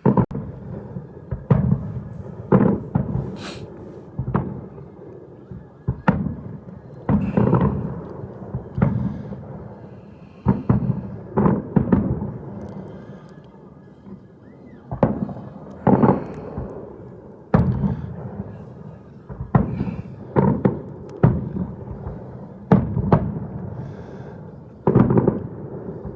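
Fireworks shells bursting in a rapid, irregular series, about one or two loud bangs a second, each followed by a rumbling echo that decays before the next.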